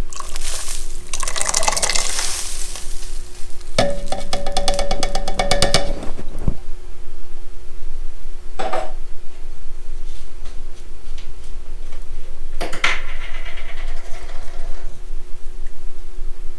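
Canned beans and their liquid poured and splashing into a cast-iron Dutch oven of broth, followed by about two seconds of quick metal clinks and scrapes against the pot, then a couple of single knocks. A steady low hum runs underneath.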